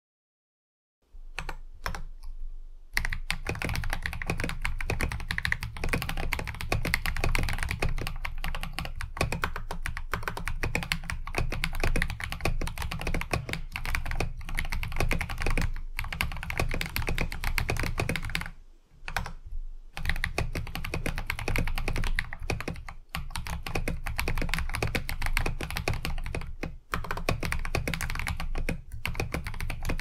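Typing on a CIY68 mechanical keyboard fitted with LEOBOG Juggle v2 tactile switches, factory-lubed with POM housings: a fast, dense run of keystroke clicks. It starts after about a second of silence with a few scattered keystrokes and pauses briefly about two-thirds of the way through.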